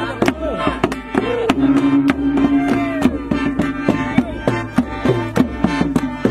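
Live Isan folk music: a khaen (bamboo mouth organ) holds a steady reed drone while a long drum (klong yao) beats a steady rhythm of several strokes a second, with voices sliding up and down over them.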